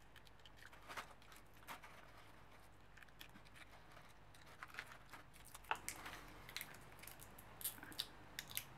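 Faint, scattered crinkles and small clicks of a small candy wrapper being picked at and torn open, one individually wrapped ginger chew that is hard to get out of its wrapper.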